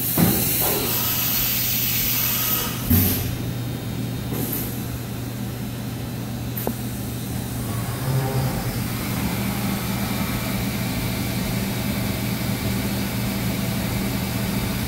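1997 Fadal 6030 vertical machining center running: a steady low hum, broken in the first few seconds by several short, loud bursts of hiss. About nine seconds in, a second steady tone joins the hum.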